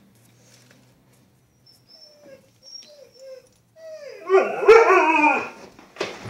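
Siberian husky giving a few short soft whines, then a loud howl about four seconds in that slides down in pitch. A sharp knock follows near the end.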